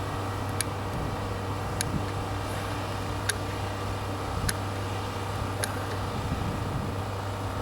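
Caulking gun clicking each time its trigger is squeezed, about once every second or so, over a steady background hum.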